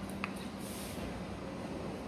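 Quiet kitchen room tone with a steady low hum, one faint click shortly after the start and a brief soft hiss about half a second in.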